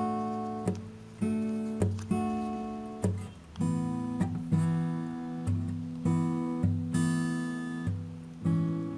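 Background music: an acoustic guitar strumming chords, with the chord changing a little past three seconds in.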